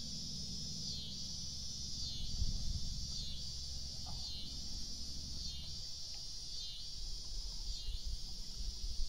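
Chorus of insects buzzing steadily, the sound dipping briefly about once a second, over a low rumble.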